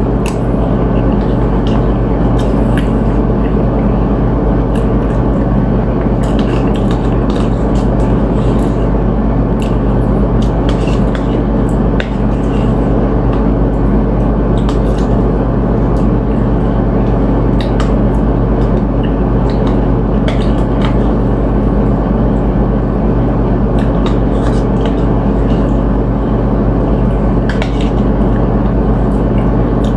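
Eating sounds, scattered crunches and clicks from chewing chips and ceviche and handling the plate, over a loud steady low hum.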